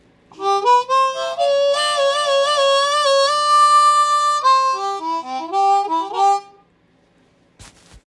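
Harmonica playing a short tune: stepping notes, one long held note in the middle, a few more quick notes, then it stops about six and a half seconds in. A short click or two follows near the end.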